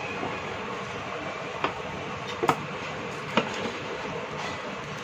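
Three sharp knocks, about a second apart, of a multimeter and other tools being moved and set down on a wooden workbench, over steady background noise.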